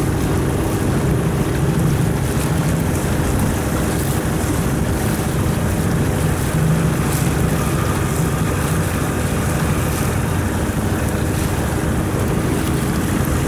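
Boat engine running at a steady pitch under the sound of water, with wind noise on the microphone.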